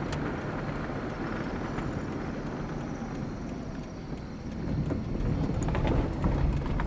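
Car cabin road noise while driving: a steady low rumble that grows louder about four and a half seconds in, with a few knocks and rattles near the end.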